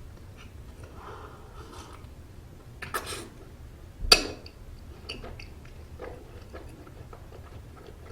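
Close-miked chewing of soft steamed bun, with many small wet mouth clicks. A short noisy burst comes about three seconds in, and a sharp, louder sound about a second later.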